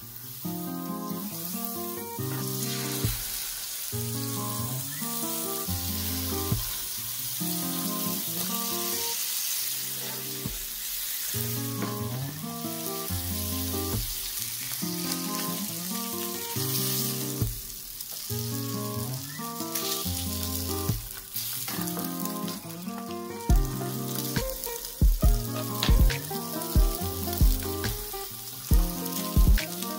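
Butter and salmon fillets frying in a nonstick pan, a steady sizzling hiss, over background music. Near the end comes a run of dull thumps as handfuls of cut cabbage are dropped into the pan.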